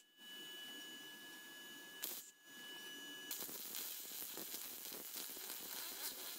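Wire-feed (MIG) welder tack-welding small steel parts: the arc crackles and hisses in short runs, breaking off briefly about two seconds in, with a faint steady high whine during the first half.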